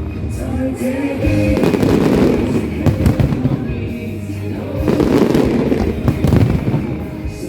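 Fireworks going off in rapid succession, sharp bangs and crackling in two heavier volleys about two and five seconds in, with music playing underneath.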